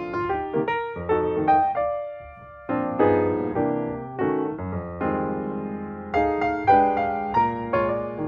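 Background music played on a piano-like keyboard: struck notes and chords that ring and fade, with a short lull a little over two seconds in.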